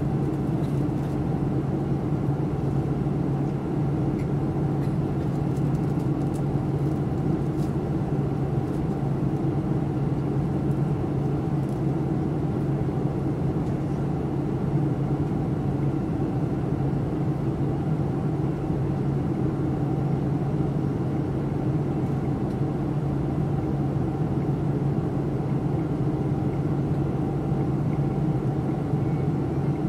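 Cabin noise inside a commercial passenger airliner in flight: a steady drone of engines and airflow with a low, unchanging hum.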